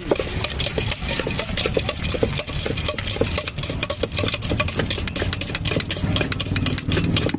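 Steel spoon rapidly clattering and scraping against a steel bowl as bhel is stirred and tossed, over a steady low engine hum.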